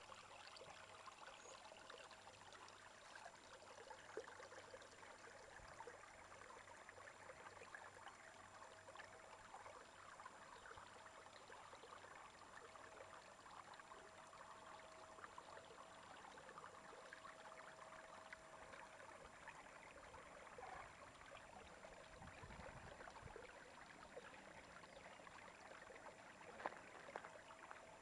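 Faint, steady rush of stream water flowing past rocks, with a faint steady hum that comes and goes.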